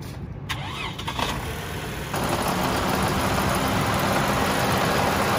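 Toyota Mark X's V6 engine idling. About two seconds in the sound steps up suddenly into a louder, steady hum with a hiss over it as load comes on. The owner puts this noise down to a belt pulley or the tensioner (adjuster) bearing and calls it very nasty.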